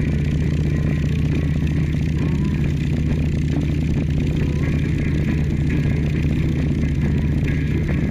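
Motorcycle engine running at a steady cruising speed, its note holding constant, over a steady rush of wind.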